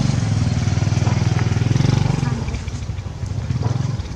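An engine running steadily, a loud low rumble that eases off a little near the end.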